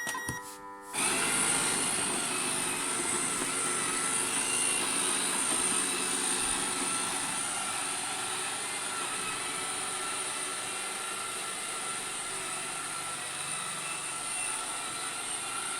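Bralko Galaxy robot vacuum starting up: a short electronic beep, then about a second in its motors start and keep running with a steady high-pitched whir.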